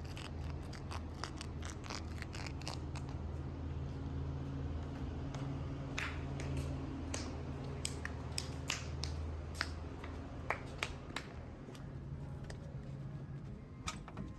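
Scattered sharp clicks and taps, like small objects being handled, over a low steady hum.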